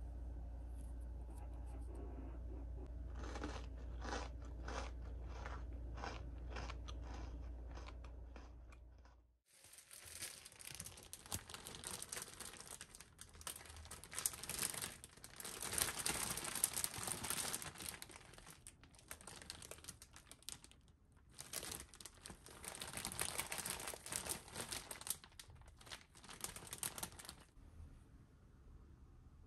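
A thin clear plastic bag crinkling and rustling as it is handled, with two brief breaks. Before it, over a steady low hum, a run of short crackles.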